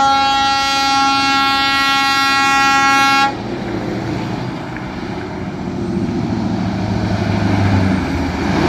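A heavy truck's air horn held on one steady pitch for about three seconds, cutting off abruptly. It is followed by the truck's engine and tyres running, with the rumble growing louder toward the end.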